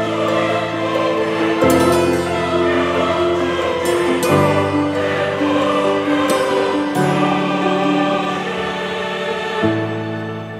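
Background music of slow, held chords that change every two to three seconds.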